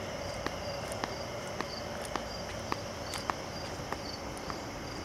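Crickets calling at dusk: a steady high trill with short chirps repeating every half second or so. Footsteps tick along evenly, about two a second.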